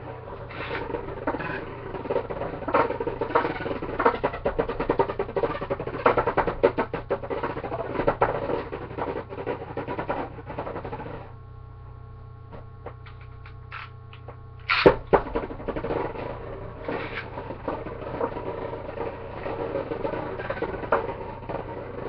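A Beyblade spinning top running in a plastic Cyclone BeyStadium, with a fast, dense rattle and scrape as it spins and bumps around the dish. The rattling stops about 11 seconds in. About 15 seconds in, a sharp launch clack sends a top back into the stadium, and the rattling spin resumes.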